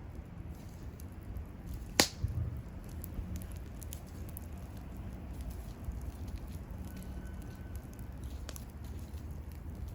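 Wood bonfire burning with scattered faint crackles over a low steady rumble, a sharp loud pop about two seconds in and a smaller pop later on.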